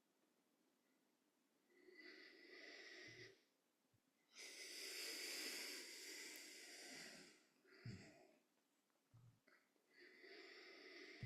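A person taking slow, deep breaths, heard softly: three long breath sounds, the middle one the longest and loudest at about three seconds.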